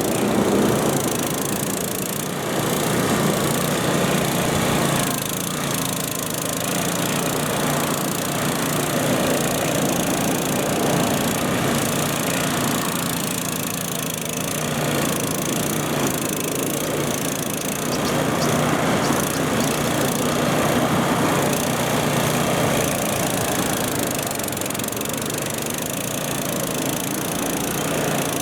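Mikasa MCG-50 groove cleaner working a pavement joint: its small engine runs steadily while the rotating cleaning head scrapes and throws grit, soil and weeds out of the groove. The result is a dense, harsh scraping noise over the engine, rising and falling slightly as the machine moves.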